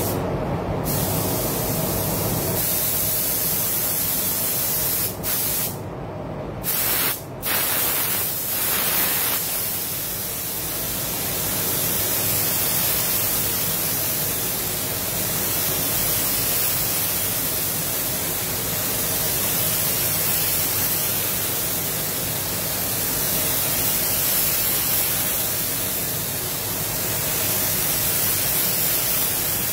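Iwata Supernova LS400 spray gun hissing steadily as compressed air atomises clear coat onto a car panel, with a few short breaks about five to seven seconds in.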